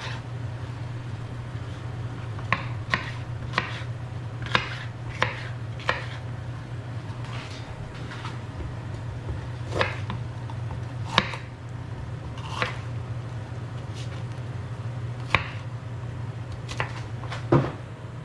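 Kitchen knife cutting bell peppers on a cutting board: irregular sharp knocks of the blade hitting the board, spaced unevenly, over a steady low hum.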